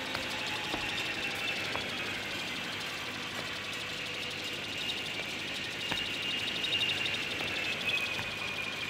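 Steady rain hiss with a high, slowly wavering whine from the boom truck's hydraulic crane running, and a few faint knocks.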